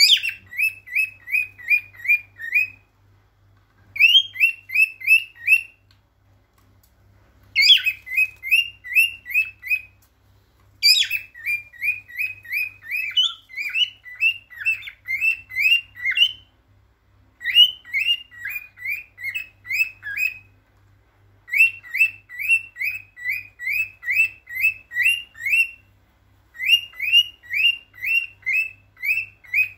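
Male lutino cockatiel singing its courtship song: phrases of short, rising, whistled notes, about four a second, repeated in runs of two to five seconds with brief pauses between.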